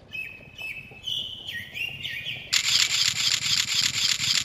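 Bird chirps over a low outdoor ambience. About two and a half seconds in comes a loud, rapid, even run of clicks, a camera-shutter burst sound effect, lasting about two seconds.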